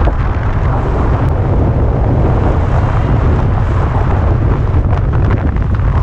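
Wind buffeting the microphone of an action camera on a skier moving fast downhill: a loud, steady, gusty rumble, with the hiss and scrape of skis running over packed snow underneath.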